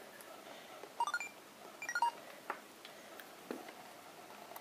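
Electronic beeps from a Sony Mavica MVC-FD90 digital camera: a quick rising run of short tones about a second in, then a quick falling run just under a second later. A few faint clicks follow.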